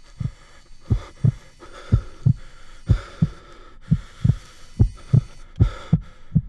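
Heartbeat sound, a low double thump (lub-dub) repeating about once a second, over a faint steady hum.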